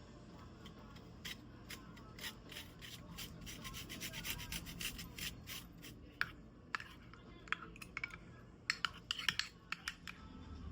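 Rubbing and scraping with many irregular light clicks and taps, busiest in the middle, with a few sharper ticks near the end.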